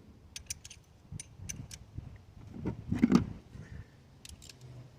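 Hand tools clinking: a socket and ratchet extension being picked up and handled, with a few sharp metallic clicks and a duller knock about three seconds in.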